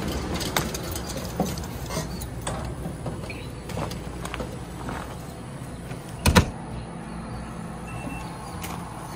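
Footsteps and knocks on an RV's folding metal entry steps and on gravel, with one much louder knock about six seconds in, over a steady low hum.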